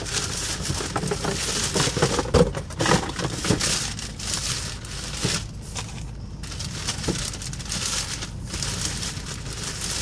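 Crinkling and rustling of a shopping bag being rummaged through by hand, in irregular crackly bursts.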